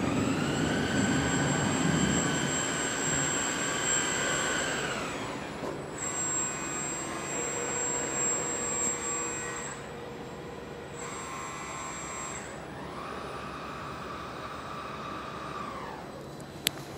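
Electric drive motors of a NIO Power Swap Station whining as the machinery works under the car at the start of a battery swap, heard from inside the car. The whine comes twice, rising in pitch as it starts and sliding down as it stops: once over the first five seconds, and again from about twelve seconds in until just before the end.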